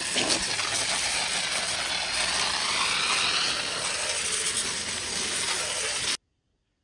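Water spraying from a hose nozzle onto a lawnmower and up under its cutting deck, a steady loud hiss that cuts off suddenly about six seconds in.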